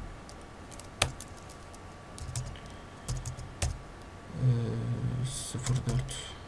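Typing on a computer keyboard: irregular, scattered keystroke clicks as text and a date are entered. About four and a half seconds in there is a brief low murmur, like a voice.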